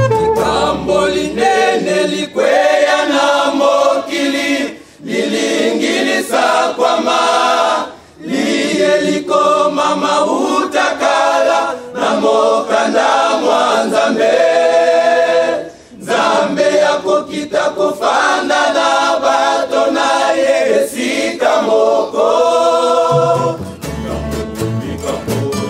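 Group of men singing a church hymn together, phrase by phrase with short breaks between phrases and little accompaniment; a low instrumental backing comes in near the end.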